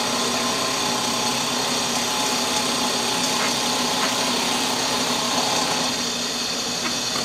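Drill press running steadily as a mill, its small cutter climb milling the foot of a maple and ebony banjo bridge on the final pass.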